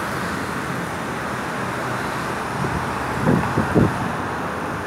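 Steady road traffic noise from a busy city boulevard, with a few gusts of wind hitting the microphone about three seconds in.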